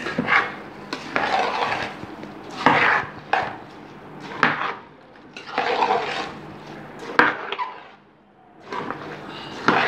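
Metal spoon stirring wet soaked rice, sesame and lentils through hot jaggery syrup in an aluminium pressure-cooker pot: repeated gritty scraping strokes against the pot's sides and bottom, with a short pause about eight seconds in.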